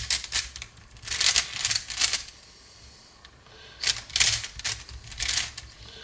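Plastic clicking and clacking of a QiYi Mofangge WuQue 4x4 speedcube's layers being turned by hand, coming in three flurries of turns with a pause of about a second and a half in the middle. The new cube feels a little dry to the solver and in need of tensioning.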